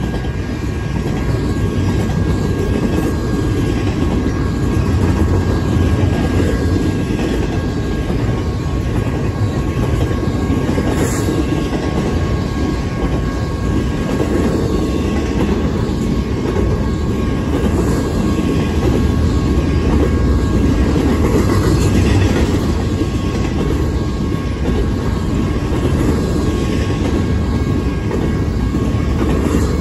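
Double-stack intermodal freight cars rolling past at speed: a loud, steady rumble of steel wheels on the rails, with a faint steady high whine above it.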